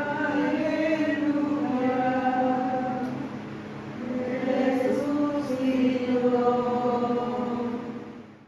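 A group of voices singing a slow religious chant in unison, with long held notes. It fades out near the end.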